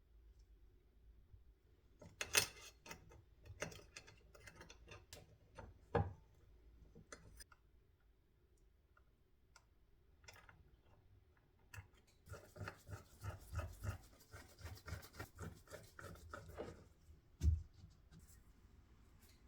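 Handling sounds of small tool parts during repair work: scattered clicks and knocks. A run of quick, even rasping or ratcheting strokes comes in the middle, and a sharp knock comes near the end.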